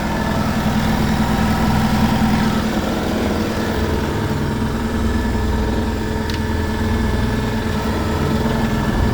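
Beko WMY81283LMB2 washing machine spinning at a steady speed with an unbalanced load: a steady motor hum over a low rumble that swells and fades as the drum and door vibrate.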